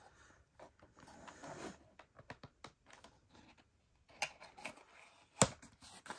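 Cardboard model box being opened by hand: faint scraping and rustling of card as the end flap is worked loose, with a few small clicks and one sharp snap near the end.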